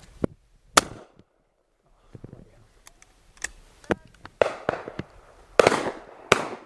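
Shotgun shots at driven game birds: one very loud shot about a second in, then a burst of shots from about three and a half seconds on, the loudest three echoing briefly, with fainter single cracks among them.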